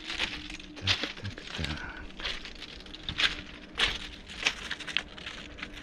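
Footsteps crunching on railway ballast, about one step every half second to second, with a few low handling bumps in the first two seconds and a faint steady hum underneath.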